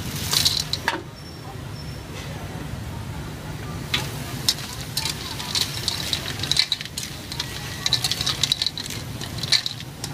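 Cockles tipped from a plastic colander into a steel wok, clattering in during the first second, then stir-fried with a metal spatula from about four seconds in: shells rattling and the spatula scraping and clinking against the wok, over sizzling.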